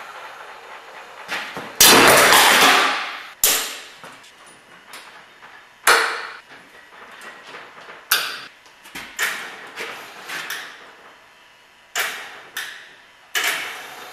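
A hand-worked lever mechanism clamped to a table, its long metal lever being pulled and pushed: a loud noisy rush lasting about a second and a half about two seconds in, then a string of sharp, irregularly spaced knocks and clanks.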